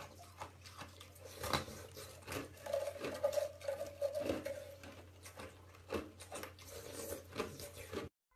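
Hollow ice being bitten and chewed: a run of irregular crisp cracks and crunches, which cuts off suddenly near the end.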